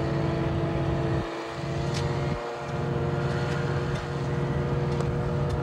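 Boat motor running steadily at speed, a constant drone over the rush of water and wind.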